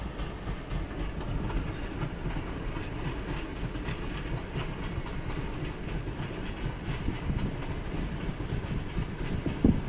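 Passenger train hauled by an EP07 electric locomotive passing at a distance, its coaches rolling over the rails with a steady rumble. There is a brief louder bump near the end.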